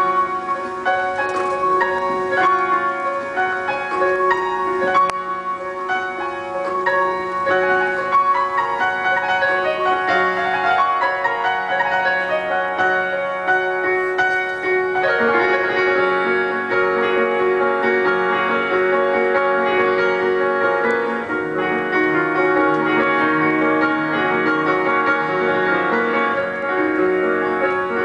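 Grand piano played live, notes ringing on and overlapping into a sustained wash of chords and melody; the playing grows fuller, with more low notes, about halfway through.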